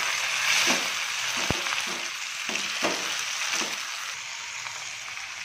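Chopped tomatoes and onions sizzling in hot oil in a steel pan while a slotted steel spoon stirs them, scraping against the pan several times with one sharp click. The sizzle slowly fades.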